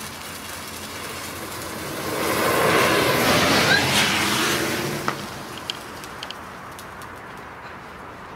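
A bundle of sparklers burning with a hiss that grows loud as the whole bundle flares up, about two seconds in, and dies back after about five seconds. A few sharp pops follow soon after.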